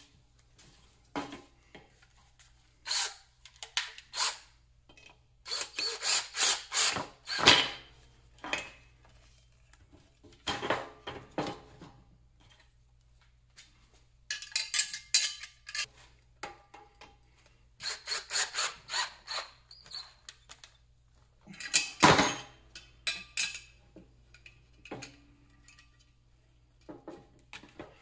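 Stainless steel bolts, lock washers and nuts being fastened through a steel bracket and crash bar with a hand wrench. The metal clicks and clatters in short bursts, with pauses between them.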